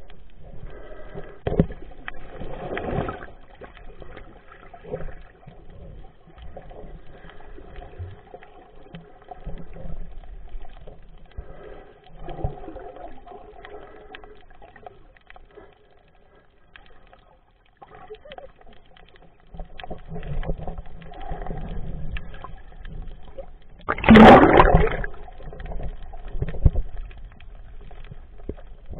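Muffled underwater sound from a camera held below the surface: water sloshing and bubbling, with one brief, louder gush of bubbles near the end.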